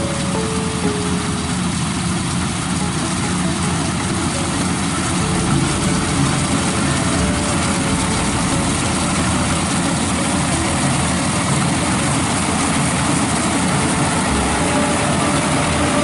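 Maxxi Bimo 102 rice combine harvester running steadily as it cuts and threshes rice, a dense, constant machine noise with no pauses.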